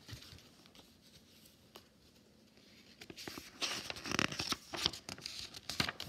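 Pages of a picture book being turned and handled: faint clicks at first, then paper rustling with sharp little knocks, loudest from about three and a half seconds in.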